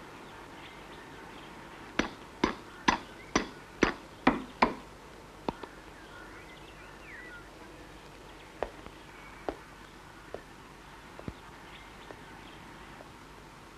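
A chickadee pecking: a quick run of seven sharp taps, about two a second, then a few scattered single taps.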